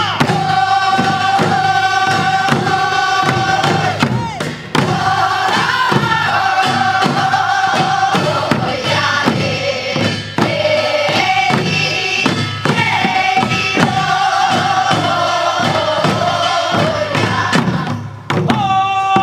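A group of voices singing a Korean farm-work song together, holding long notes, with steady beats on buk barrel drums.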